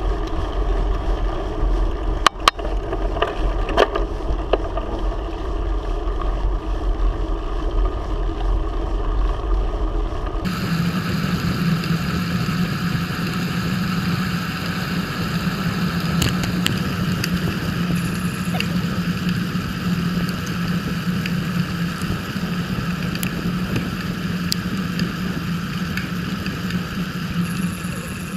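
Wind and road noise on a GoPro Hero 3's microphone while riding a bicycle, a continuous rush with a couple of sharp knocks a few seconds in. About ten seconds in the sound changes abruptly to a different rush with a steady low hum.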